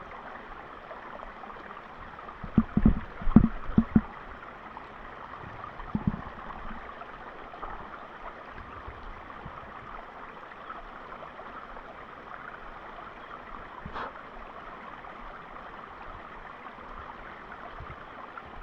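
Creek water running steadily. A few low knocks come about three seconds in and again around six seconds, and there is one sharp click near the end.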